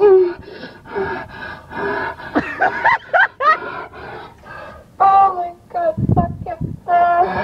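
A woman's moans and cries from a porn audio recording played back through a car's speakers: a string of short wails, rising and falling in pitch.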